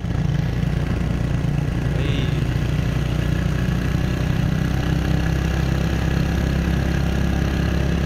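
Motorcycle engine running steadily while riding, heard from on the moving bike: an even, unchanging low engine note.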